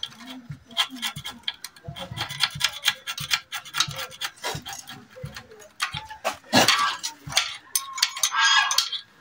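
Irregular clicks and light metallic knocks of hand tools working on a small diesel engine's valve rocker gear while the valve clearance is set. Two louder, longer sounds come about two-thirds of the way through and near the end.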